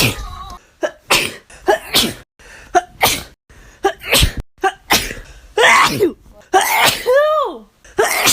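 A woman in a sneezing fit, sneezing over and over in quick succession: first short, sharp sneezes one or two a second, then from about halfway longer 'achoo' sneezes that each end on a falling pitch.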